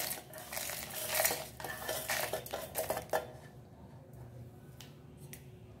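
Roasted coriander seeds, dried red chillies and cashews tipped from a steel plate into a stainless-steel mixer-grinder jar, rattling against the metal for about three seconds, then a few light clicks as the last pieces fall.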